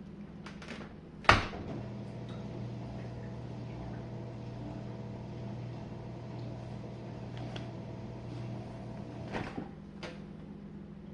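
A sharp click, then a Jenn-Air dishwasher's drain pump hums steadily for about seven and a half seconds as the cycle drains, and stops with a click near the end.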